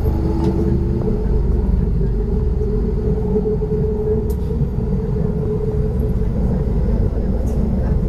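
MTR K-Train electric train heard from inside the car as it pulls away, with the traction motors' whine rising in pitch and then holding steady. Underneath is a constant low rumble of the wheels on the track.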